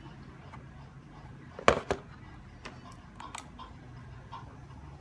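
Two sharp clicks close together a little under two seconds in, followed by a few lighter ticks, over a low steady hum.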